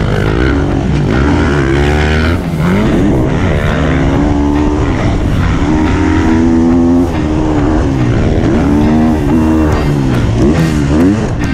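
Dirt bike engine, recorded onboard, revving hard. Its pitch climbs and drops back again and again as the bike shifts up through the gears while accelerating.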